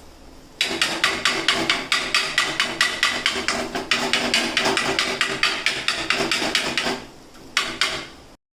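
Two flat steel spatulas chopping kuttu parotta on an iron tawa: a fast, even clatter of metal strikes, about five or six a second. The chopping stops about seven seconds in, then comes back as a short final burst.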